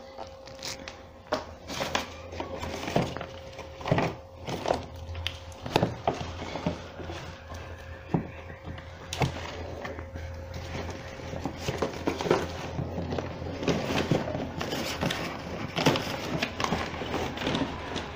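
Irregular clicks and knocks over a low steady hum, with a faint steady tone that fades out about halfway through.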